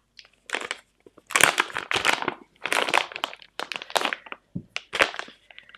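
A plastic flower paste pouch crinkling and rustling in a series of short bursts as it is opened and paste is taken out.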